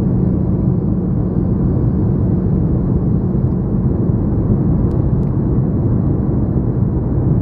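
Steady low drone of a jet airliner's cabin in flight: the rush of engines and airflow heard from a window seat.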